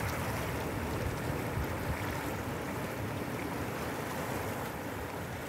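Sea water washing and surging around shoreline rocks: a steady rush of surf.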